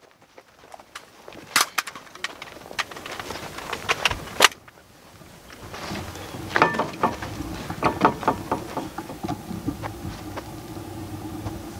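Gear and gun-handling noise while a shooter moves between positions: many clicks and rattles, with two louder sharp cracks in the first half, the second the loudest. From about halfway a steady low hum runs under the rattling.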